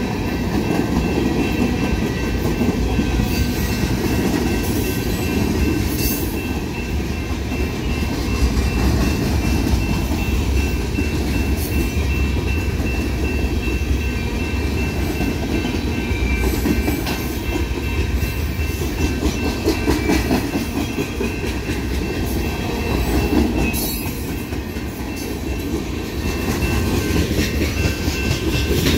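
Freight cars of a manifest train rolling past close by: a steady rumble of wheels on rail with clickety-clack over the joints. A few sharp metallic clanks cut through, about six seconds in, around twelve seconds and near the end.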